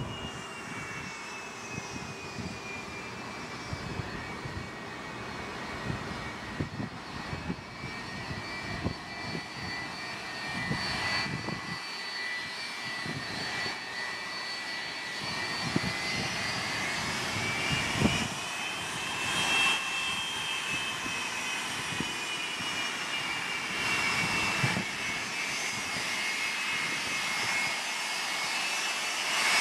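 Boeing 757 jet engines whining as the airliner taxis after landing. The pitch sags slightly, rises about two-thirds of the way through and eases back, and the sound grows louder near the end as the aircraft turns toward the listener.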